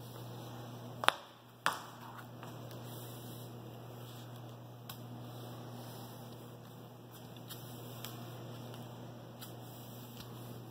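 Push broom's bristles sweeping dirt and hair across a hard hallway floor, a steady brushing. There are two sharp knocks about a second in, half a second apart, over a steady low hum.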